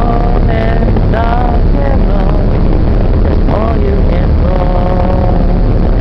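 Boat engine running with a loud, steady low rumble, while people sing over it in held, wavering notes.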